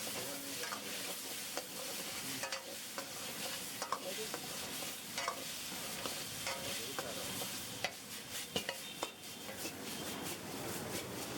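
Food frying and sizzling in a hot pan while a metal utensil stirs it, with irregular sharp clicks and scrapes of metal on the pan.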